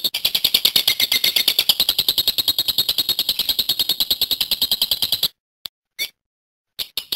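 Lovebird's long, rapid chattering trill (the 'ngekek' song prized in Indonesian lovebird contests), about a dozen high-pitched notes a second. It breaks off about five seconds in, a few single chirps follow, and it starts again right at the end.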